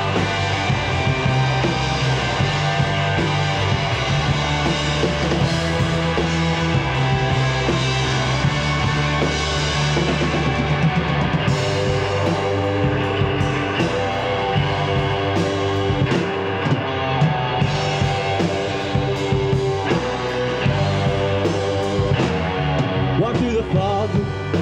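Rock band playing an instrumental passage between sung lines: electric guitars, electric bass and a drum kit, steady and full.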